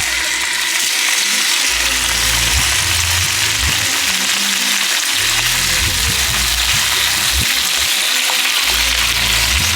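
A steady, loud sizzling hiss that cuts off abruptly at the end.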